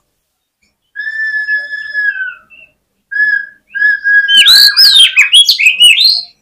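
Oriental magpie-robin (kacer) singing in aggressive, fighting mood. It gives long steady whistles, then about four and a half seconds in breaks into a loud run of rapid, swooping, varied phrases.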